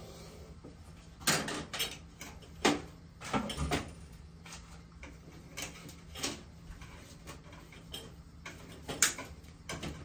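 Irregular clicks, knocks and rustles of hand tools and electrical wire being handled, several sharp clacks a second or so apart, over a faint steady low hum.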